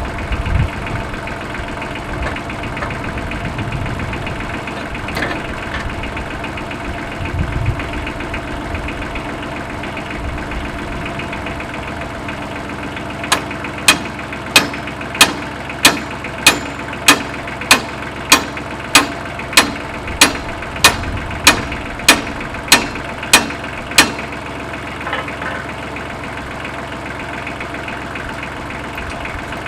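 Tractor engine idling steadily. Partway through, a run of about eighteen sharp, evenly spaced knocks, roughly one and a half a second, stops abruptly while the engine idles on.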